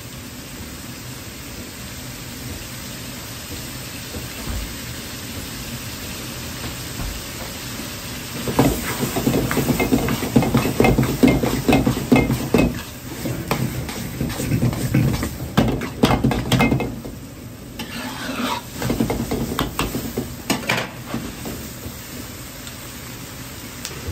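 Minced pork, onion and tomato sizzling steadily in a wok over a gas burner. About a third of the way in, a metal ladle starts stirring and scraping the food against the wok with quick clinks and clatter. It stops briefly, stirs again for a few seconds, then only the sizzle is left.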